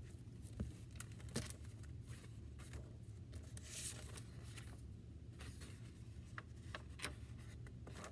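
Faint handling of a picture book: a soft page rustle about halfway through and scattered light taps and clicks, over a low steady room hum.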